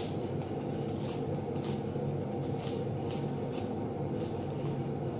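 Dry papery skins of red onions crackling and rustling as they are peeled by gloved hands, in short rustles about once a second, over a steady low hum.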